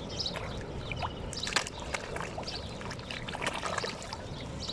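Many birds chirping and calling at once, short calls overlapping without a break, over a steady wash of lapping water.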